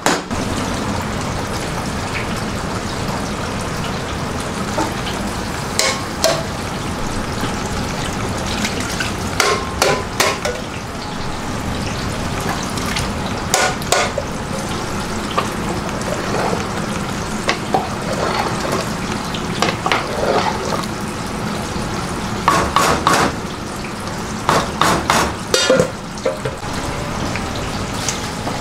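A large pot of vegetable korma cooking on the burner as coconut milk is stirred in: a steady sizzling hiss, with a metal ladle knocking and scraping against the pot every few seconds.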